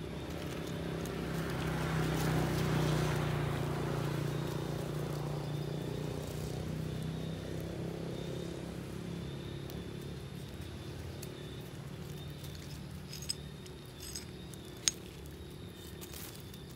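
A motor vehicle's engine passing by: a low hum that swells to its loudest about two to three seconds in, then slowly fades. A few short sharp clicks come near the end.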